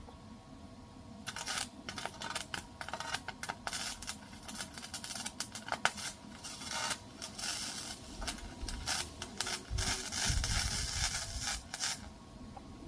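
Electric arc welding: an irregular sizzling crackle from the arc, starting about a second in and running in short stop-start stretches until near the end.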